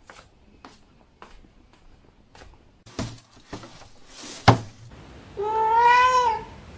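A few light knocks and one loud thump, then a domestic cat's single long meow near the end, rising and then falling in pitch.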